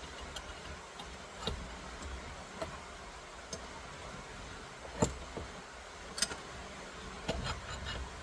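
Scattered metal clicks and clinks as a steering wheel puller and its bolts are fitted onto a steering wheel hub, the loudest knock about five seconds in, over a steady background hum.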